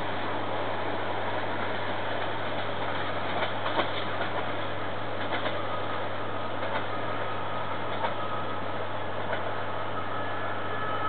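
Departing train running steadily, with scattered clicks of wheels over the rails and a faint high squeal that sets in during the second half and grows near the end.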